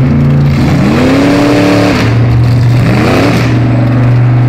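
A drag car's engine idling at the start line, revved up twice: the first rev, about half a second in, climbs and holds for over a second before dropping back, and a shorter rev follows shortly after.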